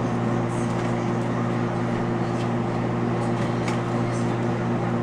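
Microwave oven running with a steady hum while heating a cup of coffee.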